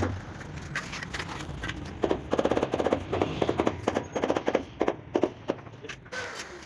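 Irregular sharp knocks and taps, with a quick rattling run of taps a little over two seconds in.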